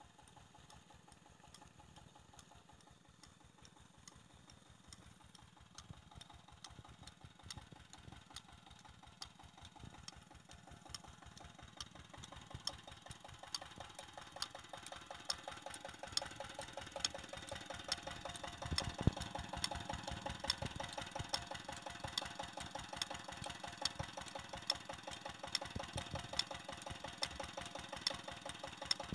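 A 25 hp 'Peter' diesel tube-well engine runs steadily with a rapid, even knocking beat while it drives the well pump by a flat belt. It grows louder from about halfway through.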